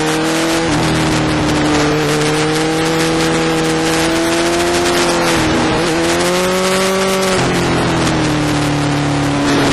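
Suzuki GSX-R1000's inline-four engine running under load on a twisty road, its note climbing steadily and then dipping sharply as the throttle comes off, about three times. Heavy wind rush underneath.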